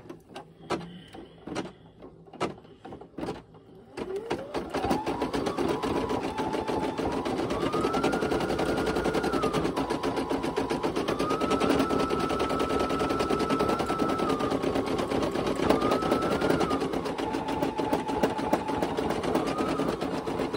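Brother PE800 computerized embroidery machine stitching the last thread colour of a design. After a few light clicks, the machine starts about four seconds in. Its motor whine rises, then steps up and down in speed over a rapid needle hammering, and it stops near the end.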